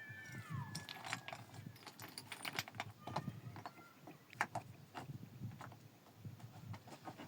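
Scattered sharp knocks and clicks at an uneven pace, with a bird's short whistled call near the start.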